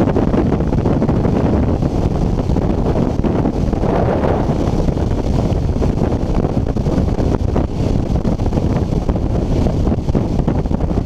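Freefall wind rushing over a skydiver's camera microphone: a loud, steady roar of wind noise, heaviest in the low end.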